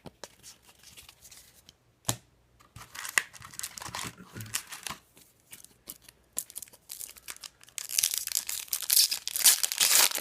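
Wrapper of a hockey card pack being torn open and crinkled by hand. There is a sharp snap about two seconds in, and the tearing and crinkling are loudest near the end.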